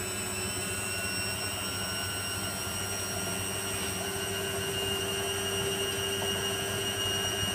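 Servis 308S washing machine spinning, its motor whining steadily and slowly climbing in pitch as the drum gathers speed.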